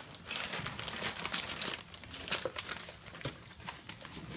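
Packaging being handled during an unboxing, crinkling and rustling in a dense, irregular crackle.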